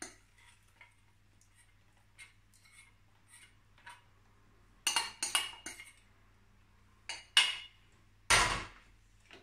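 A metal spoon scraping and clinking against a small stainless-steel saucepan as thick caramel is scraped out into a metal tin mould: faint ticks at first, then groups of sharp clinks. Near the end there is one louder clunk as the saucepan is set down on the gas hob's grate.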